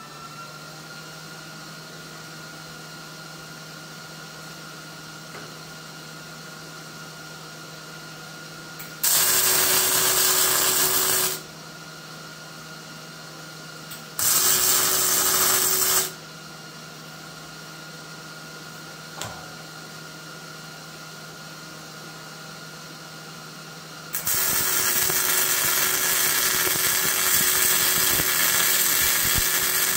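MIG welder arc-welding steel: three runs of welding noise, about two seconds from nine seconds in, another from about fourteen seconds in, and a longer one from about twenty-four seconds in to the end. Between the runs the welder hums steadily, with a single short click.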